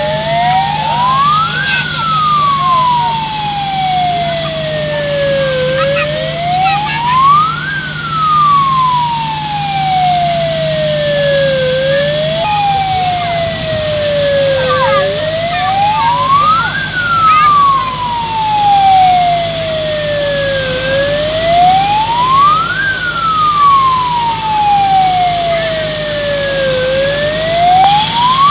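Fire truck's wailing siren, rising in pitch for about two seconds and falling for about four, repeating about every six seconds over a steady low engine hum.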